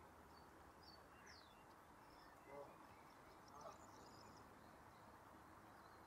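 Faint outdoor ambience with distant birds calling: scattered high chirps, and two short lower calls, one about two and a half seconds in and one about a second later.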